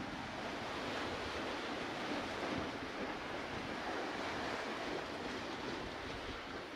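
Steady wash of sea waves breaking among the pier's concrete tetrapods, with wind buffeting the microphone underneath.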